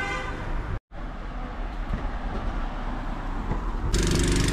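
Street traffic noise: a steady rumble and hiss of vehicles, with a brief dropout under a second in, growing louder about four seconds in, where a vehicle engine is heard close by.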